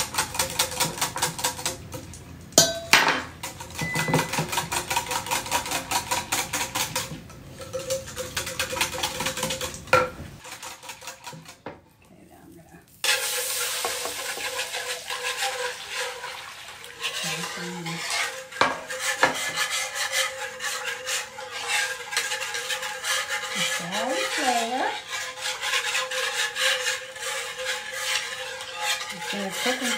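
Whisk beating a flour-and-milk gravy mixture in a glass mixing bowl with fast, rapid strokes. After a short pause about ten seconds in, the mixture is poured into the electric skillet and whisked there, the whisk scraping across the pan.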